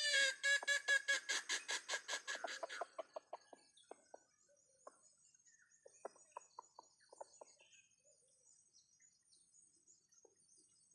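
Village chicken (ayam kampung) clucking: a loud call, then a fast run of clucks, about five or six a second, that fades after about three seconds into scattered fainter clucks. A faint steady high insect drone runs underneath.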